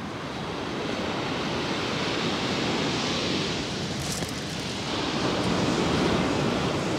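Rough sea surf breaking and washing on a shingle beach, a steady rush of noise that swells louder in the later part, with wind buffeting the microphone.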